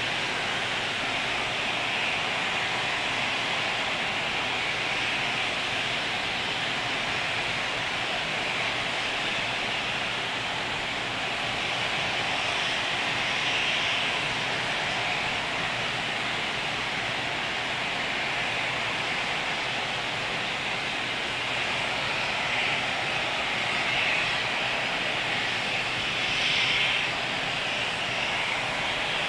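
Distant roar of an Atlas V rocket's RD-180 first-stage engine climbing away after liftoff: a steady rushing noise without a clear pitch, swelling slightly twice near the end.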